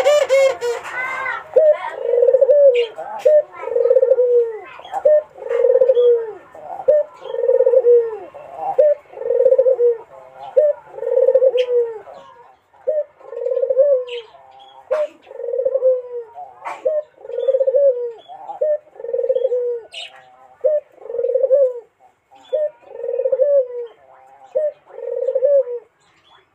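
Barbary dove (puter) cooing over and over, a steady string of low, rounded coos at about one per second, in the dove's wooing call. A brief loud, noisy burst comes right at the start.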